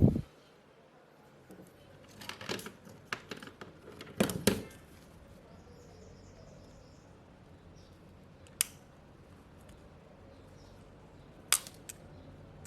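Small hard clicks and taps of metal repair tools against an opened smartphone's internal parts while a screw and the charging board are being removed: a few scattered knocks, loudest about four seconds in, and single sharp ticks later on.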